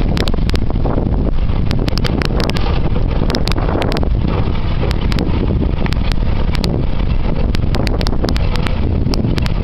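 Wind buffeting the microphone: a steady, loud, low rumble broken by frequent sharp crackles.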